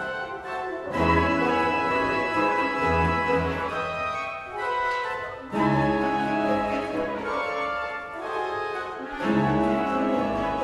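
The 1882 Ladegast pipe organ playing sustained chords together with a chamber ensemble of woodwinds and strings. Fresh loud chords enter about a second in, about five and a half seconds in, and about nine seconds in.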